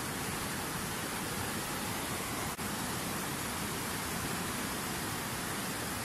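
Fast mountain river rushing over rocks, a steady, dense sound of white water with one momentary dip about two and a half seconds in.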